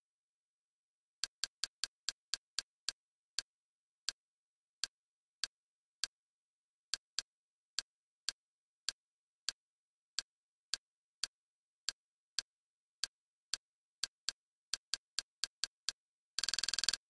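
Kodi's menu navigation click sound, one short click for each step through the list. The clicks come at an uneven pace that quickens, ending in a fast, almost continuous run of clicks as the list is scrolled rapidly.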